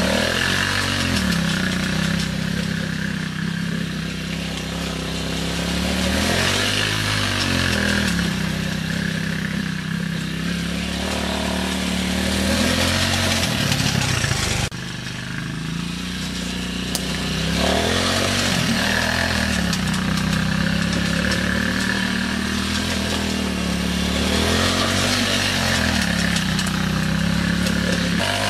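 Kingway 200 ATV engine running and revving up and down several times. The sound breaks off abruptly about halfway through and the engine note carries on.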